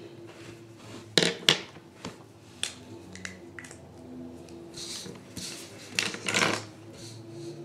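Drawing tools being handled and used on paper: several sharp clicks and clacks, the loudest two about a second in, and short scratchy strokes a little later.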